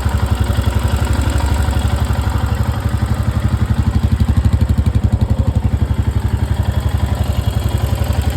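Royal Enfield Himalayan single-cylinder engine idling with a steady, even pulse, making the weird noise that the owner's best guess puts down to a tappet issue.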